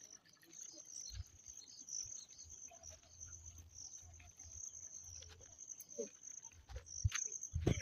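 Insects chirring in a steady, high-pitched drone, with footsteps in sandals and scattered knocks on a dirt path beneath it. A heavier thud comes near the end.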